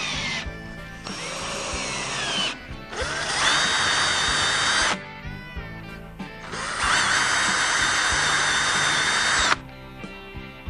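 Power drill running in four bursts of about half a second to three seconds each, with the motor's pitch dipping and rising during the second burst. Background music plays under it.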